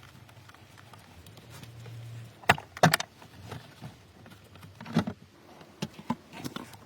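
Sharp clicks and knocks of hand work on a car, with three louder knocks about two and a half, three and five seconds in, over a faint low hum.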